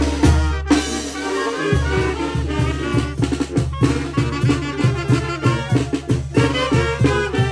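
Mixtec village brass band (banda de viento) playing: brass holding a chord, a short break under a second in, then a melody over a steady drum beat, with a long low bass note that turns into a pulsing bass line about two seconds in. The band is playing with one of its trombones damaged.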